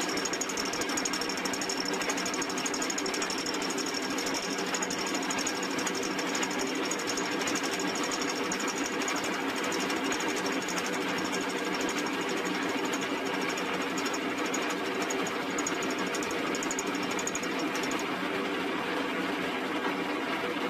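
Archdale vertical milling machine running, its fly cutter cutting a cast iron vice jaw as the table feeds the work under it. The sound runs steadily, and a high-pitched part of it stops near the end.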